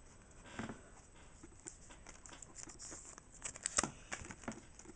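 Pokémon trading cards being flipped through by hand: a faint soft patter of card edges sliding and rustling, with a few light clicks.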